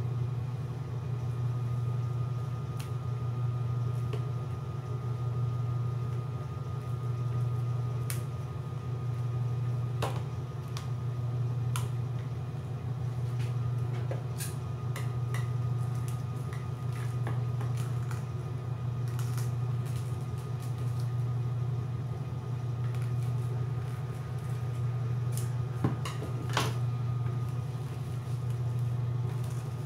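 Plastic cling film pulled from its roll and pressed down over a plastic ice-cube tray: scattered crinkles, taps and clicks, a few louder ones near the end. Under it a steady low hum that swells and fades every couple of seconds.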